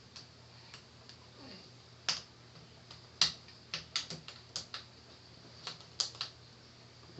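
Irregular sharp clicks and taps of a laptop's small hinge parts and screws being handled and fitted by hand. There are about a dozen, the loudest about two and three seconds in, with clusters around four and six seconds in.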